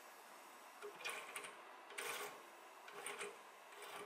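Faint spurts of buzzing and clicking from a homemade Lego electric motor with a hand-wound copper-wire rotor and copper-foil commutator, run on 10 volts from a bench power supply; the sound comes about four times, roughly a second apart. The motor is drawing current but not running freely.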